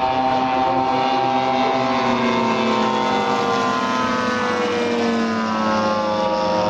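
Propeller engines of several large radio-controlled WW2 warbird models flying together overhead. The engines run at different pitches in a steady blend, and some slide slowly lower as the models pass.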